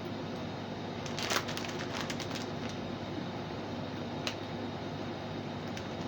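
Brief crinkling of a snack wrapper about a second in, then a couple of single clicks, over a steady room hum.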